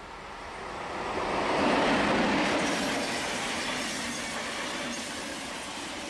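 Swiss SBB electric passenger train passing close by at speed. The rush of the locomotive and coaches swells to its loudest about two seconds in, then slowly eases as the coaches run past.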